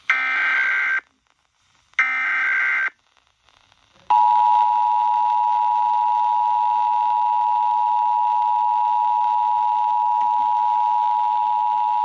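Emergency Alert System test tones played through a small portable radio's speaker: two one-second bursts of the SAME header data tones a second apart, then, about four seconds in, the steady two-tone EAS attention signal.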